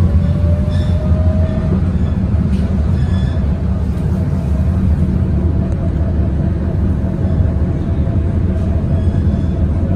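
Interior of a ČKD KT8D5R.N2P articulated tram running along the street: a steady low rumble of wheels on rails, with a faint whine that rises slightly in the first two seconds and then holds steady, and a few light clicks.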